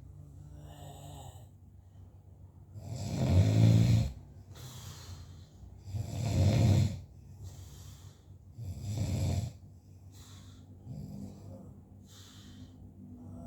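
A man snoring in his sleep: three loud, rasping snores about three seconds apart, with softer snoring breaths before and after them.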